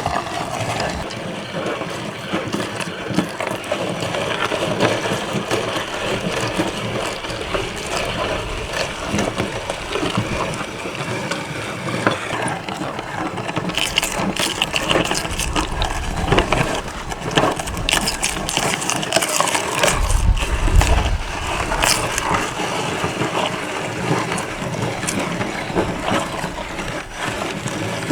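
A meat grinder crunching through cucumber, with a dense, continuous run of crackling and clicks. A low hum swells for a few seconds past the middle.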